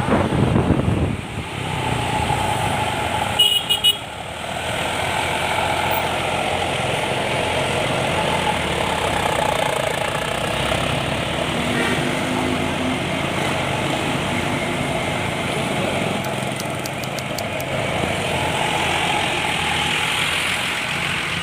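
Truck running along the road with a steady engine and road noise, and short blasts of its horn, one sharp burst about three and a half seconds in.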